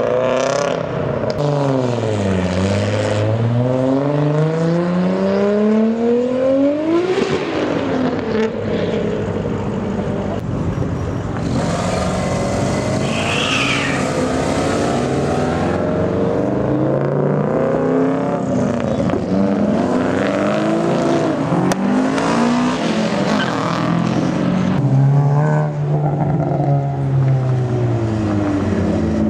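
Several cars revving and accelerating past one after another, their engine pitch repeatedly dropping and then climbing as each one pulls away.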